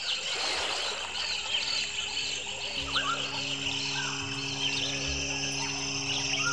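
Recorded nature ambience of many short bird and insect chirps over a steady hiss, joined about three seconds in by a low, held musical drone as an ambient music track begins.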